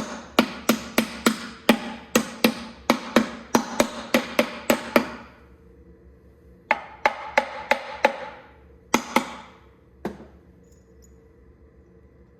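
Hammer blows, about three a second, in a steady run of about five seconds. After a short pause comes a second, shorter run, then one last weaker blow.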